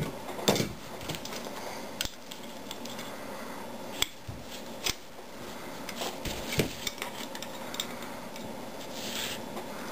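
Steel adjustable wrenches clinking and knocking against a brass pipe fitting and each other as the fitting is gripped and tightened: a handful of separate sharp metallic clicks, the loudest about half a second in, with a short scrape near the end.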